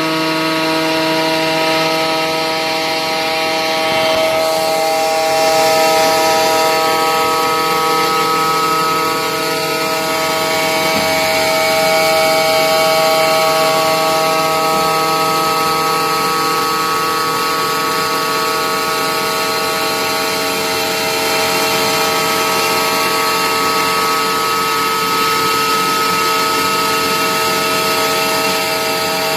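CNC 6040 router's spindle cutting aluminium: a steady whine made of several held tones over a constant cutting noise.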